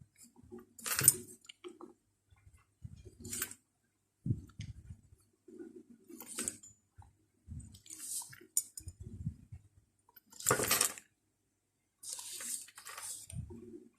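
Scattered short brushing and rustling sounds of a Chinese brush and hand working over paper, about six of them spaced a second or two apart, the longest and loudest near the middle, with dull low knocks against the desk in between.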